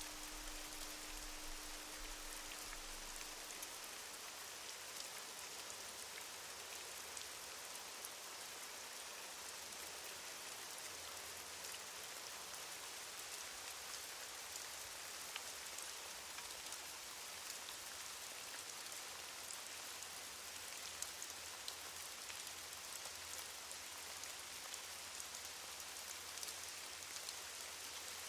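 Steady, faint rain with scattered small drop ticks. A singing bowl's low hum dies away in the first few seconds.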